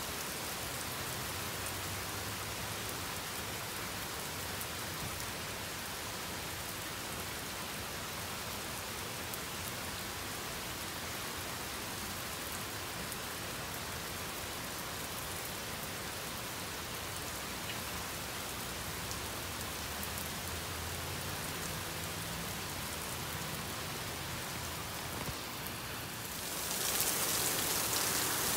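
Heavy rain pouring onto an asphalt parking lot, a steady hiss of drops splashing on the wet pavement. It grows louder and hissier about a second or two before the end.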